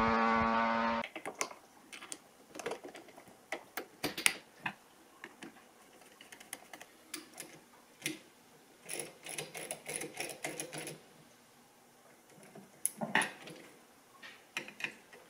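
Small metal clicks, taps and short rattles of hand tools and parts as a motorcycle Brembo front brake lever and master cylinder, clamped in a vise, is reassembled with a screwdriver. Before that, an engine drones loudly and cuts off abruptly about a second in.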